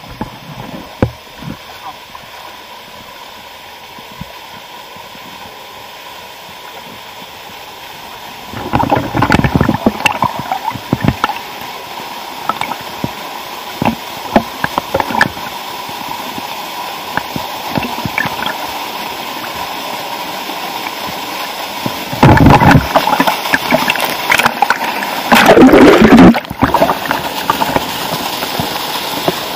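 A small waterfall pouring into a pool, a steady rush that grows louder as it is approached. Loud splashes and sloshing from wading through the pool come about nine seconds in, again around fourteen seconds, and strongest between about twenty-two and twenty-six seconds.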